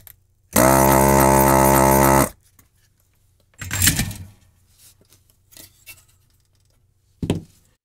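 Hakko powered desoldering tool's built-in vacuum pump buzzing steadily for about two seconds, pulling molten solder out of a through-hole joint. A couple of brief handling noises follow, one about two seconds later and one near the end.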